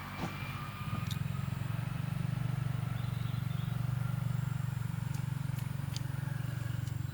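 A small engine running with a low, rapid pulse, growing louder about a second in and easing off near the end, as if passing by.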